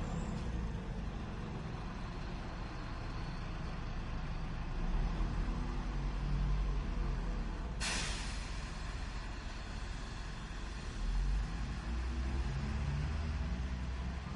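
Garbage truck's engine running with a steady low rumble, and a short, sharp hiss of its air brakes about eight seconds in.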